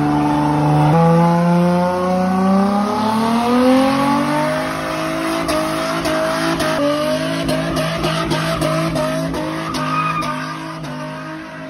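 Car doing a burnout: the engine revs step up about a second in and climb for a few seconds, then hold high while the spinning rear tyres squeal on the pavement. The sound fades off near the end.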